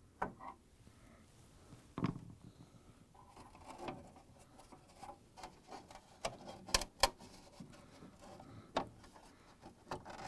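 Plastic refrigerator drip pan being pried free of its tabs and lifted out: scattered clicks, knocks and rubbing of the plastic, with a thump about two seconds in and two sharp clicks in quick succession past the middle.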